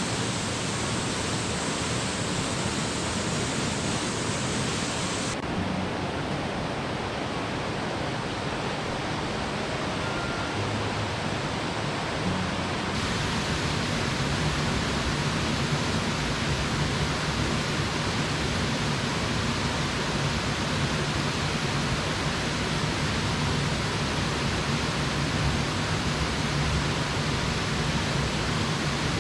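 Rushing water of a small mountain stream, a steady noise that changes character abruptly about five seconds in and again about thirteen seconds in.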